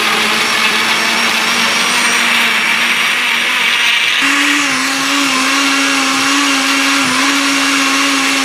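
Countertop electric blender running, blending sliced banana and apple with milk into a smooth juice. The motor runs steadily and its pitch steps up about four seconds in.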